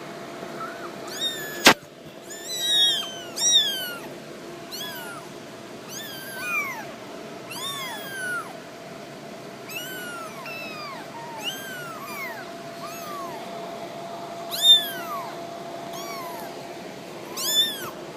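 Young cats meowing over and over, one arching call after another about once a second, sometimes two at once. A sharp click comes about two seconds in, with a faint steady hum underneath.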